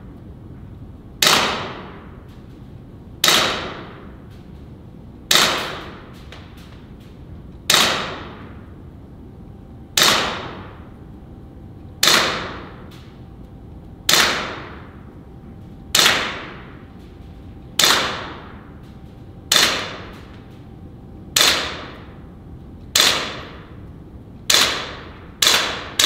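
Glock-replica air pistol fired in single shots about every two seconds, 14 in all, coming quicker near the end. Each shot is a sharp report with a short ringing tail.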